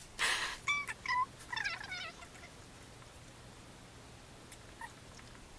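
A woman's high-pitched, squeaky giggling: a short breathy burst, then a few squeals falling in pitch, over about the first two seconds.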